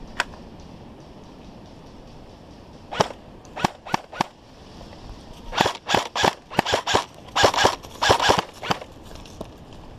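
A&K SR25 airsoft electric rifle firing single shots with sharp cracks: one near the start, a few spaced shots at about three to four seconds in, then a quicker string of about a dozen shots.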